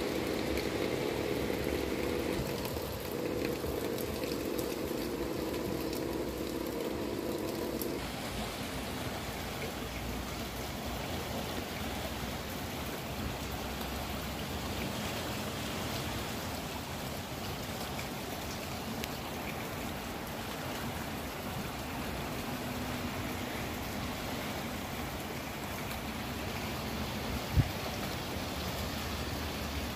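Storm water gushing and bubbling up out of an overloaded street manhole onto a flooded road, a steady rushing of water. For the first several seconds a car drives slowly through the flood water, its engine and tyres adding a low hum. There is a single short knock near the end.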